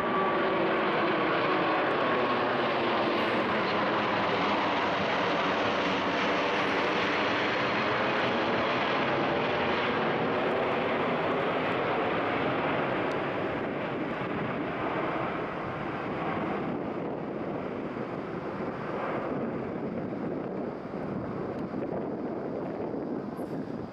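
Jet engines of an Airbus A380 roaring as it climbs out overhead, the roar sliding in pitch as the aircraft passes. The sound fades gradually over the second half as it climbs away.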